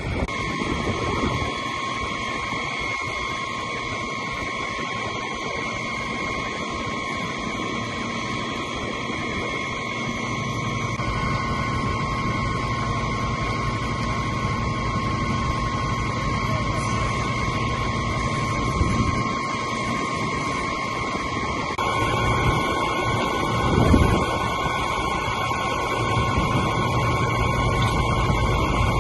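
Fire engines running steadily at the scene: a constant engine rumble carrying a steady high tone, which grows heavier about a third of the way in. There is one brief thump late on.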